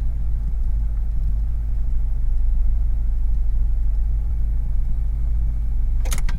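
Car engine idling steadily, heard from inside the cabin, a low even rumble. About six seconds in come two sharp clicks as the ignition is switched off.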